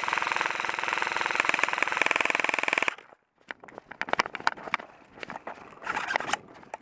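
Electric airsoft rifle firing a long full-auto burst, a rapid even stream of shots over the gearbox's steady buzz, stopping suddenly about three seconds in. Afterwards come irregular footsteps and gear clatter from running over dirt.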